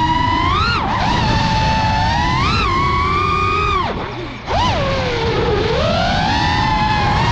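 FPV quadcopter's brushless motors and three-blade 5-inch props whining, the pitch rising and falling with throttle. About four seconds in the whine drops away briefly as the throttle is cut, then spools back up and sweeps down and up again.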